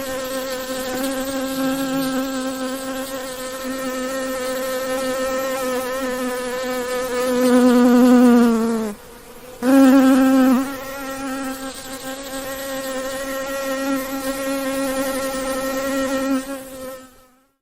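A bee buzzing in a steady, even-pitched hum. About eight seconds in it grows louder and its pitch sags, it cuts out for about half a second, and it comes back loud before settling. It fades out near the end.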